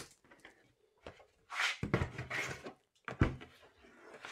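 A large folded paper game map being unfolded and laid flat: rustling and flapping of stiff paper, with two thumps, the louder one a little after three seconds in.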